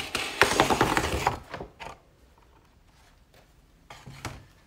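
A sheet of watercolour paper being torn out of a pad: a crackly rip lasting about a second and a half. It is followed by quiet handling, with a soft knock near the end.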